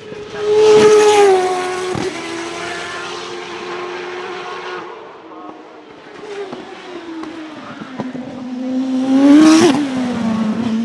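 Single-seater hillclimb race car engine at high revs, passing close by with a loud peak about a second in and another near the end, the pitch dropping as each pass goes by.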